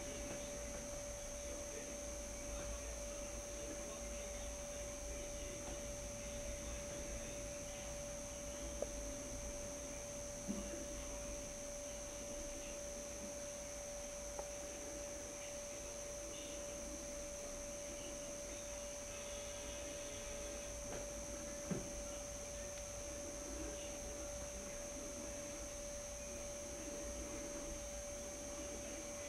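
Steady electrical hum: a constant mid-pitched tone with a fainter high whine above it over a low rumble, broken by a few faint soft clicks.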